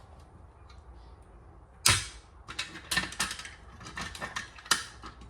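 A plastic Kidde fire alarm pull station being handled while it is reset and fitted back together: a sharp knock about two seconds in, then a run of lighter clicks and knocks.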